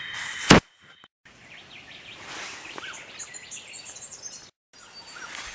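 A steady high trill of night insects, cut by a single loud click about half a second in. After a brief gap come early-morning birds chirping and calling, with a short dropout near the end.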